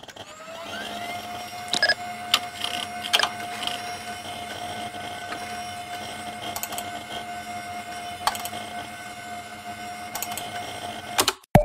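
Electronic computer hum: a steady tone rises in the first second and holds, over a low drone and hiss, with a few sharp clicks and keystrokes. It cuts off suddenly near the end.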